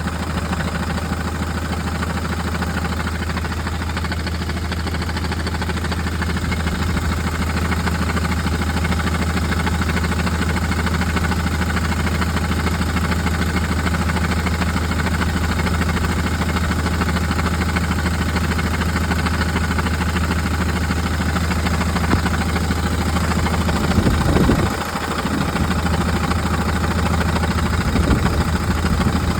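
Fiat Ducato 3.0 engine idling steadily with a rattle from the six-speed gearbox, which the owner suspects may be the clutch. The sound changes briefly about 24 seconds in, with a short dip in level.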